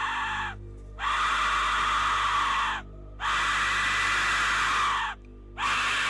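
Aztec death whistle blown in long, shrill, scream-like blasts of about two seconds each, separated by short breaks. A faint low background drone runs underneath.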